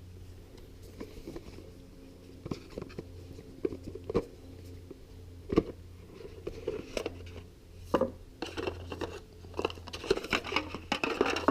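Small device and its packaging being handled: scattered clicks and light knocks, with plastic or cardboard crinkling and rustling that gets busier over the last few seconds, over a steady low hum.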